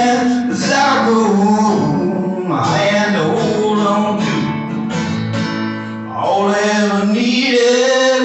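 Acoustic guitar strummed under a man's singing voice, both amplified through a PA system.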